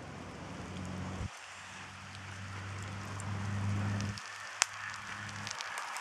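Wood campfire under a cooking kettle crackling and hissing softly, with scattered ticks and one sharp pop a little after halfway. A steady low hum runs alongside, breaking off briefly about a second in and stopping about four seconds in.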